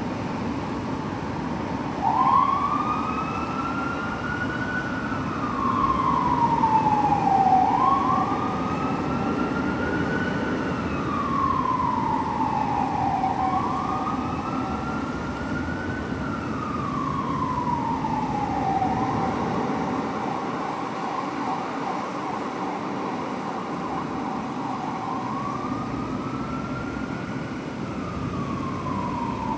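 Fire truck's electronic siren on wail, rising and falling slowly about every five to six seconds over the truck's low diesel engine rumble. Near the end it holds at its low pitch for several seconds before rising again.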